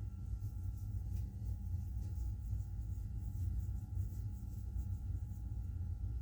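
Faint, soft rubbing of fingers massaging balm into the skin of a wrist, over a steady low rumble and a faint steady whine of background noise.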